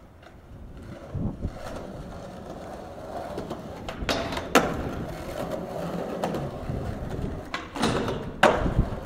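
Skateboard wheels rolling on concrete, then sharp clacks as the board pops and hits a metal handrail about four seconds in. The board runs along the rail for a few seconds, and a further run of clacks near the end as it comes off and lands.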